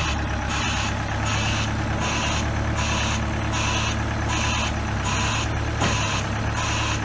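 JCB 35D diesel forklift running at low speed, its reversing alarm beeping evenly a little more than once a second over the steady engine hum.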